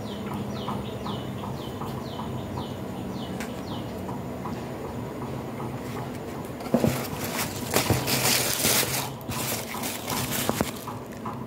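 Tissue paper rustling and crinkling in irregular loud bursts as it is handled in a cardboard shoe box, starting about seven seconds in. Before that, a steady low hum and a run of short, falling high chirps.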